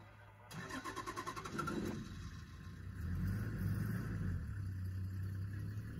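A safari vehicle's engine running with a low hum that grows louder about three seconds in. In the first two seconds a rapid, even clatter is heard.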